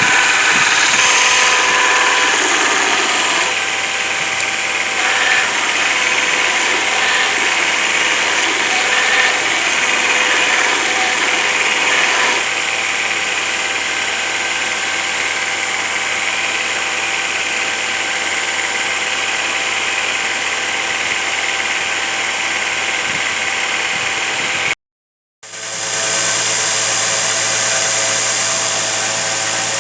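Electric power tool running steadily with a dense, gritty noise and a few steady tones. It cuts out completely for a moment about 25 seconds in, then resumes with a slightly different pitch.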